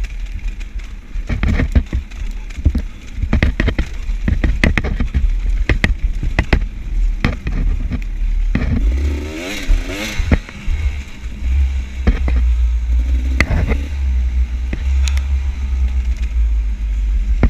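Enduro dirt bike ridden over a rough trail: the engine runs and revs up and down, with many sharp knocks and clatter, over a steady low rumble.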